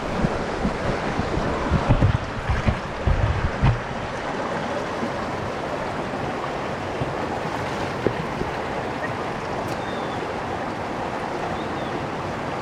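Steady rush of a flowing stream, with a few low thumps between about two and four seconds in.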